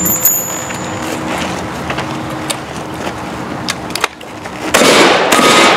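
Revolver fire at steel targets: after a stretch of quieter background noise with a few faint knocks, a loud burst of shots starts about a second before the end.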